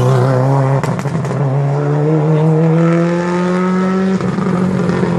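Subaru Impreza rally car's turbocharged flat-four engine accelerating hard out of a tight bend, its pitch climbing steadily. There are a few sharp cracks about a second in, and the revs drop with an upshift about four seconds in.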